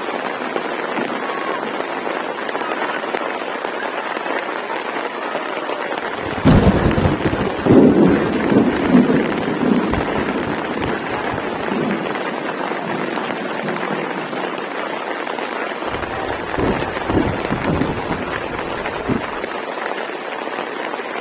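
Steady rain falling, with a sharp thunderclap about six seconds in that rolls on as low rumbling for several seconds, and another stretch of low thunder rumbling near the end.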